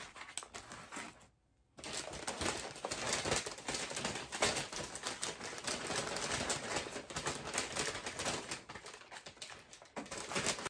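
Paper takeout bags and a sandwich wrapper rustling and crinkling as they are handled and opened, with a short pause about a second and a half in.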